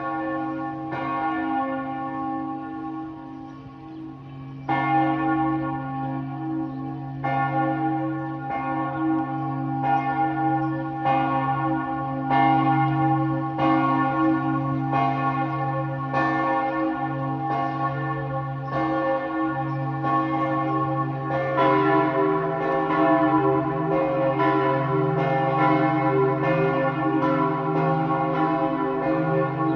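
Several large church bells pealing together, their overlapping strokes falling about once a second over a deep, lingering hum. The ringing begins suddenly, another bell joins about five seconds in, and the peal grows fuller again a little after twenty seconds.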